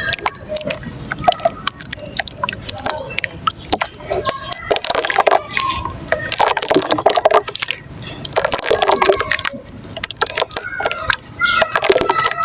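Soft dry mud chunks crumbling in water: a dense run of crackling clicks and crunches.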